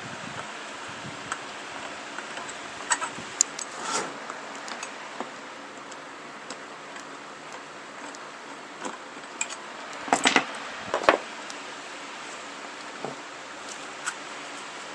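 Scattered small clicks and clinks of hand work on a plastic wiring-harness connector as a screw is backed out of it, with a louder clatter of a few knocks about ten seconds in. A steady low hum runs underneath.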